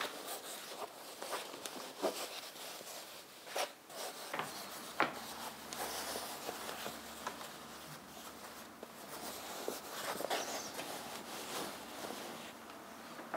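A cloth curtain being hung on its rail: the fabric rustles and slides, with several light sharp clicks of the curtain hooks on the rail.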